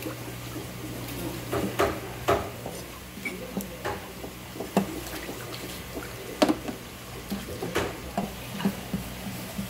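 A kitchen knife knocking and scraping on a wooden cutting board as raw fish is filleted and skinned: irregular sharp knocks, the loudest about two-thirds of the way in, over a steady low hum.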